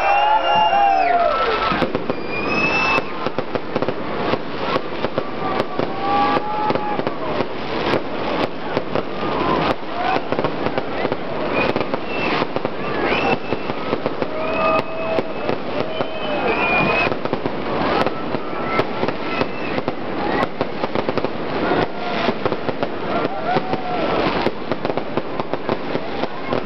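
Fireworks crackling and popping close by in a dense, unbroken rapid string of sharp reports.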